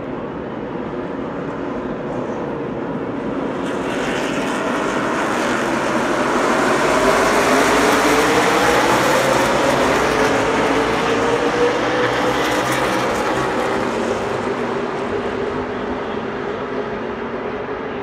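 A pack of NASCAR Cup Series stock cars with V8 engines running on the oval. The engine noise swells to its loudest about halfway through, with a rising engine note, then eases off as the field moves on.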